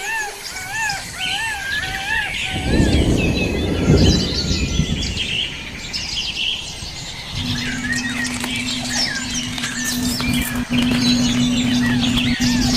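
Many birds chirping and calling in quick short notes. A brief low rumble about two and a half seconds in, then a steady low hum from about halfway through.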